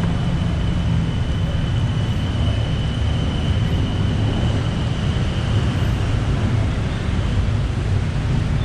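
Busy city street traffic: a steady rumble of passing vehicles, with a thin high whine that fades out about six seconds in.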